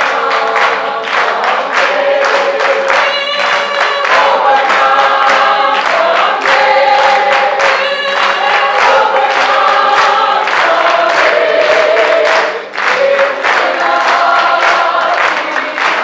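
A group of mixed voices singing together in long held notes, with steady hand claps on the beat.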